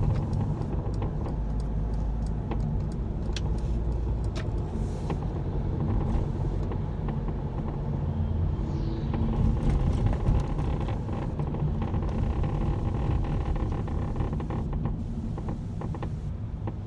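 Cabin noise in a Mercedes-Benz W447 van on the move: a steady low road rumble with irregular sharp clicks and rattles from the left sliding door. This is the door's abnormal noise, which a factory adjustment has not cured.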